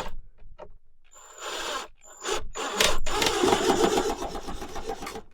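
Power drill driving a screw into a thin wooden ceiling plank: a short run about a second in, then a longer, louder run with a steady high whine that stops near the end.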